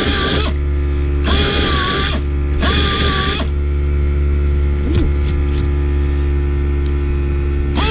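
Rotary tire buffer running in short bursts, grinding the inside of the tire around the puncture to prepare a spot for the patch. One burst ends about half a second in, two more short bursts follow about a second and two and a half seconds in, and another starts near the end, over a steady low hum.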